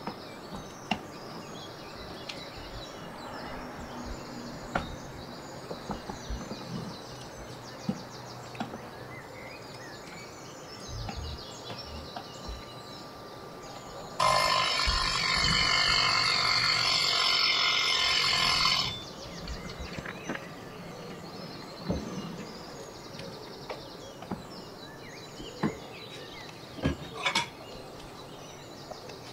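Salter mechanical dial kitchen timer ringing its bell for about four and a half seconds, then cutting off suddenly: the set cooking time is up. Before and after it come scattered light clicks and knocks of kitchen utensils.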